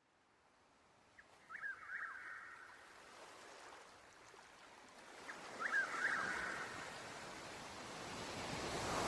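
Rushing water or surf, fading in from silence and slowly growing louder, with a short chirping call heard three times, about four seconds apart.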